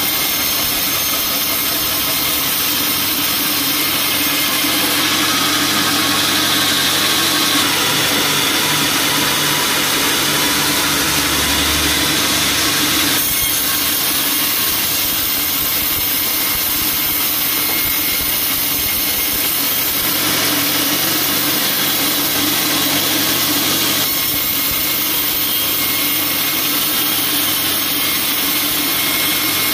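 Band sawmill blade cutting lengthwise through a teak log, a loud steady sawing noise from the machine that shifts in pitch a few times.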